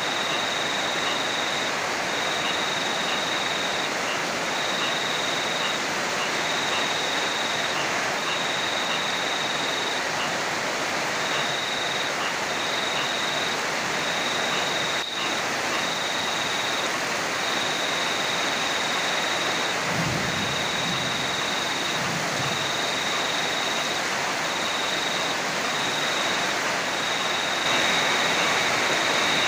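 Heavy rain falling steadily, with a high tone that pulses on and off about once a second. A brief low rumble comes about two-thirds of the way in.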